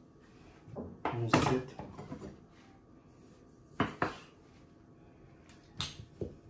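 Knocks of a wooden mandoline slicer and a kitchen knife on a wooden cutting board: a loud clatter about a second in as the slicer is set down, then sharp single taps of the knife blade hitting the board as it cuts through a small tomato, near the middle and again toward the end.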